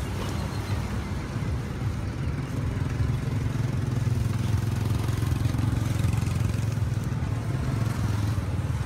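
A vehicle engine running steadily close by: a low hum that gets louder about three seconds in and eases near the end, over general street noise.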